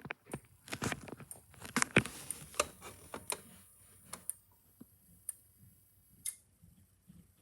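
Irregular clicks and knocks, many in the first three seconds, then only a few scattered ones.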